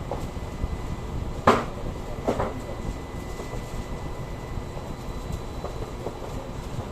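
A steady low mechanical rumble with two sharp knocks, the first about a second and a half in and the second a little under a second later, and a few faint ticks after.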